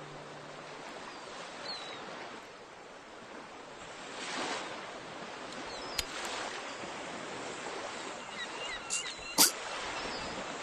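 Seaside ambience: a steady wash of surf that swells about four seconds in, with a few sharp clicks near the end and faint short chirps.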